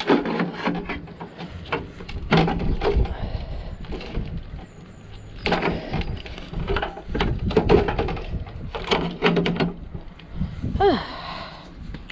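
Metal parts of a small boiler being cut and worked with snips: irregular knocks, clanks and scraping. A brief squeal falls in pitch near the end.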